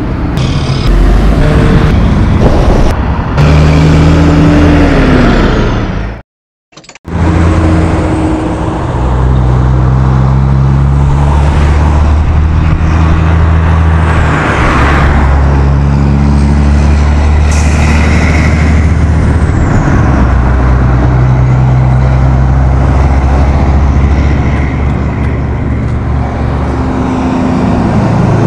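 Diesel engines of heavy logging trucks hauling loaded log trailers past, pulling steadily with engine pitch stepping up and down as they work through the gears, over tyre and road noise. The sound cuts out briefly about six seconds in.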